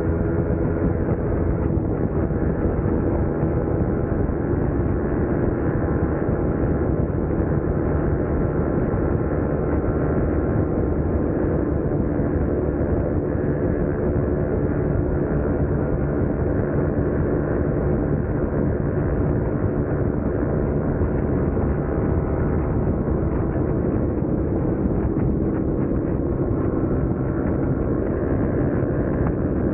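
Yamaha Sniper 155R's single-cylinder engine running steadily, a sound the owner calls "gasping for air".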